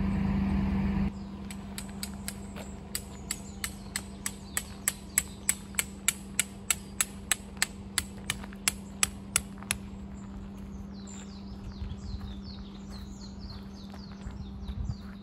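Hammer driving a tent peg into the ground: a long run of sharp, even strikes, about three a second, growing louder and stopping about ten seconds in. Birds chirp after the hammering, and a steady hum runs for the first second before a cut.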